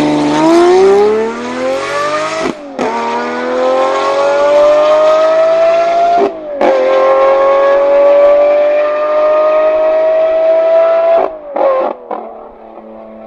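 Lamborghini Murcielago LP640's 6.5-litre V12 with a straight-piped, catless Fi exhaust accelerating hard through the gears: the engine note climbs steadily in each gear, broken by three upshifts about two and a half, six and a half and eleven seconds in. Near the end it lifts off and fades as the car recedes.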